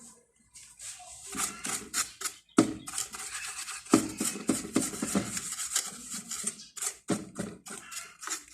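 Hands handling computer hardware close to the microphone: irregular clicks and short scraping rasps.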